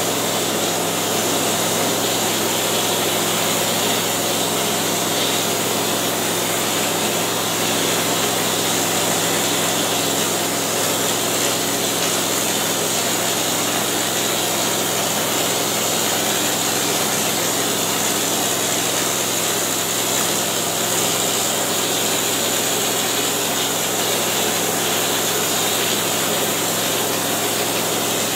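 Texture hopper spray gun spraying ceiling texture: a continuous hiss of air and spray over the steady hum of the air compressor that feeds it.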